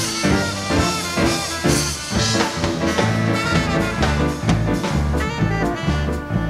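Live Latin dance band playing an instrumental: trumpet, trombone and saxophone over bass and drums, with a steady beat.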